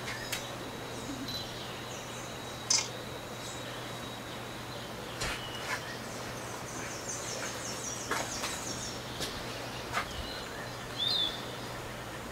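Tropical forest birds giving scattered short chirps and calls, with a quick run of high notes about seven to nine seconds in, over steady outdoor background noise and a low hum.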